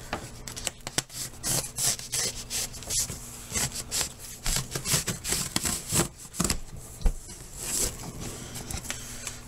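Knife blade scraping and slicing through packing tape and cardboard on a shipping box in a rapid series of short, uneven strokes, with cardboard flaps rustling as they are pulled open near the end.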